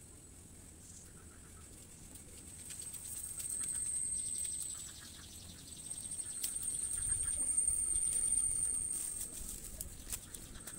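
Dry sticks and twigs rustling and clicking as they are picked up by hand off the ground and bundled together. Behind them runs a steady high-pitched whine that swells twice and is the loudest sound.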